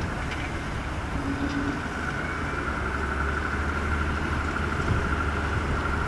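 Cessna 172's piston engine and propeller running steadily on the runway during a touch-and-go, a constant hum with a high steady whine, slowly growing louder.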